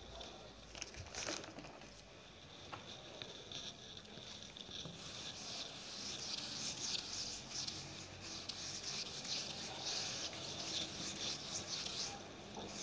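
Whiteboard being wiped clean: rubbing strokes across the board's surface, louder from about five seconds in.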